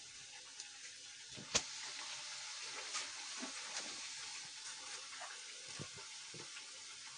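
Potato-semolina cutlets deep-frying in a pan of hot oil: a steady sizzling hiss with small crackles, and a sharp click about a second and a half in.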